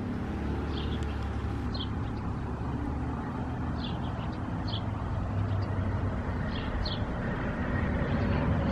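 Outdoor ambience: a steady low rumble, with faint short bird chirps now and then.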